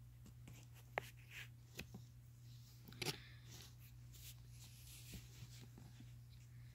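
Faint rustling and scratching of three-week-old kittens wrestling on a fleece blanket, with a few soft clicks; the loudest bit comes about three seconds in, over a low steady room hum.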